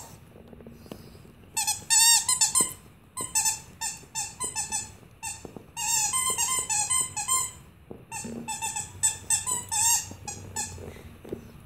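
A squeaky dog toy squeaked over and over as a dog chews on it, in quick runs of many short, high squeaks starting about a second and a half in and stopping shortly before the end.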